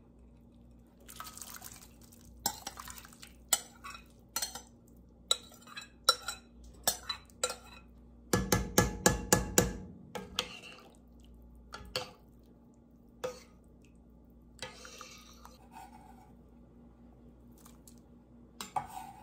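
A metal spoon scrapes and knocks against a glass mixing bowl and an enameled cast-iron Dutch oven as cooked vegetables are spooned into the pot. There are scattered clinks throughout, and a fast run of about eight loud taps in a second and a half comes a little past the middle.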